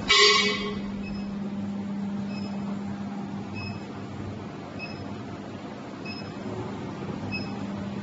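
Powered-on LH MHG 80 portable induction heater cabinet humming steadily. A faint short high pip sounds about every second and a quarter, and a louder beep comes right at the start.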